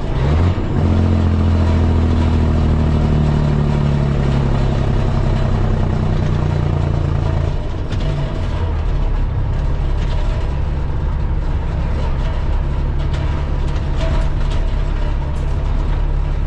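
Semi truck's diesel engine running on the road, heard from inside the cab, over steady road noise. Its pitch changes about half a second in and again around eight seconds in as the driver shifts gears.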